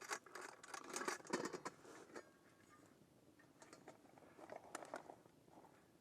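Faint, irregular small clicks and crackles, busiest in the first two seconds and again around four to five seconds in.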